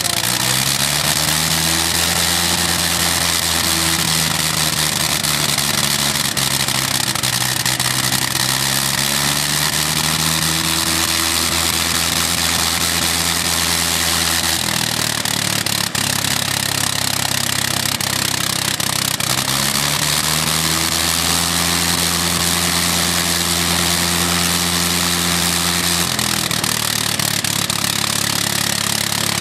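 World War I Gnome Monosoupape rotary aero engine catching after its propeller is swung by hand, then running loud and steady. Its speed drops suddenly about halfway through, climbs back a few seconds later, and drops again near the end: the speed switch is cutting out part of the firing order to step the engine between its full, half, quarter and eighth speed settings.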